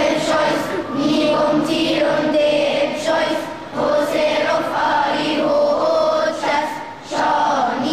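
A group of children singing a Coptic church hymn in unison, in long held phrases broken twice by short pauses.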